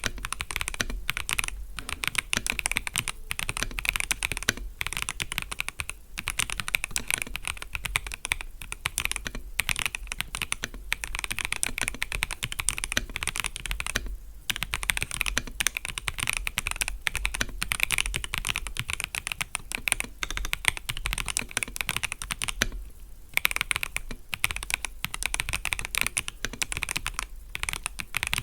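Continuous fast typing on an FL-Esports MK750 gasket-mount mechanical keyboard: a dense run of key clacks, broken by two brief pauses, about halfway and again near the end.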